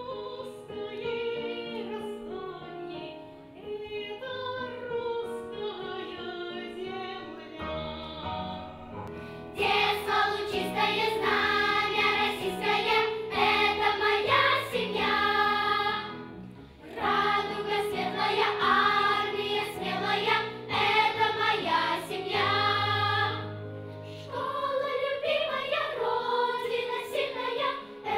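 A girl sings a solo line. About ten seconds in, a children's choir comes in louder, singing together, with short breaks between phrases.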